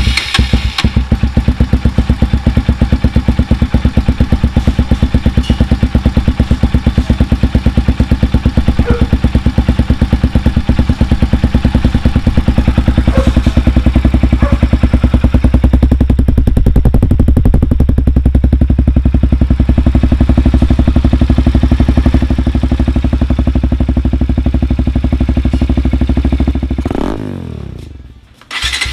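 Bajaj Pulsar NS200's single-cylinder engine running through a Yoshimura full-carbon aftermarket exhaust, a loud, steady, rapidly pulsing exhaust note. Near the end the note falls away and briefly cuts out, then the engine sound comes back.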